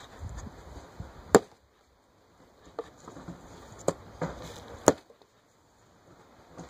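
Sword point stabbing a wooden shield covered in t-shirt fabric: a 440 stainless steel M-Tech Defender Extreme blade strikes the half-inch wood again and again, a series of sharp knocks with the loudest about a second and a half in and again about five seconds in. The wood stops the point each time.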